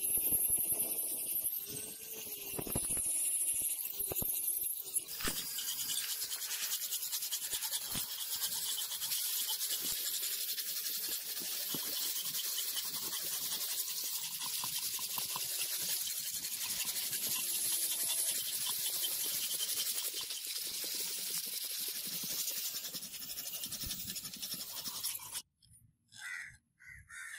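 An angle grinder with a flap disc grinds the rusty steel head of a claw hammer held in a vise, its motor pitch wavering under load, for about the first five seconds. Then comes a long, even rasping hiss of a hand file working the steel, which stops abruptly a couple of seconds before the end.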